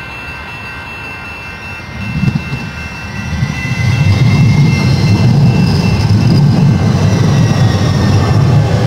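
San Diego Trolley light-rail train pulling into the platform and passing close by. The low rumble of wheels and motors swells about two seconds in and stays loud, with a faint high whine gliding in pitch above it.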